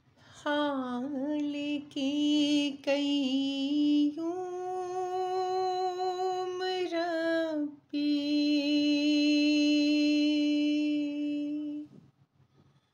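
A solo unaccompanied voice humming long, wordless held notes with slow melodic turns. It breaks off briefly a few times and stops about a second before the end.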